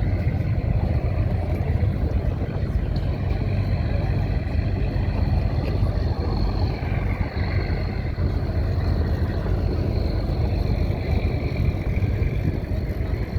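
Steady low rumble of engine noise, with faint higher tones running over it.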